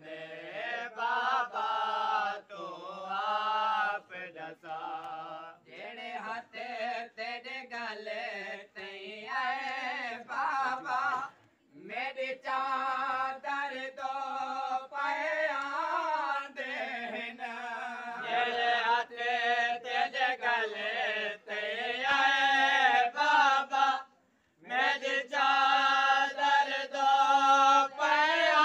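A noha, a Shia mourning lament in Punjabi, chanted by male voices in long, wavering held notes. The chant breaks off briefly about 12 and 24 seconds in.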